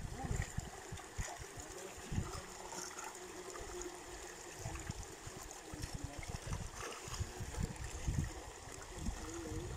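Water splashing and trickling as milkfish (bangus) fingerlings are scooped with plastic bowls from a crowded net enclosure and poured into plastic bags for counting, with the small fish splashing at the surface. Irregular low rumbles and thumps run underneath.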